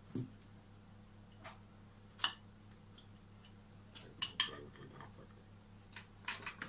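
Metal hand tools being picked up and set down on a workbench while a bonsai pot is handled: scattered light clicks and clinks, the sharpest about two seconds in and a small cluster around four seconds in. A faint steady hum runs underneath.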